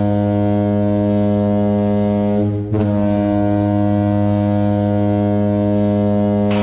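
Linköpings HC's ice hockey goal horn blasting a deep, steady tone, signalling a goal; the blast breaks off briefly about two and a half seconds in and then sounds again.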